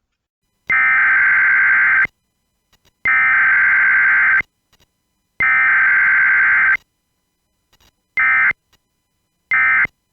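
Emergency Alert System SAME header tones, the digital data bursts that open a radio emergency alert. Three long bursts about a second and a half each, then two short bursts near the end.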